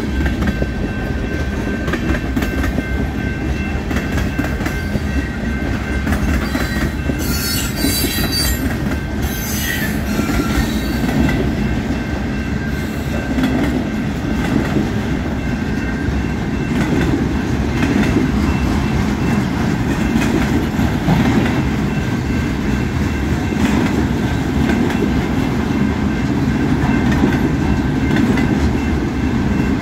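Freight train cars rolling past at a grade crossing, wheels clattering steadily on the rails as tank cars give way to empty centerbeam flatcars. About seven to ten seconds in, a brief high-pitched wheel squeal rises over the clatter.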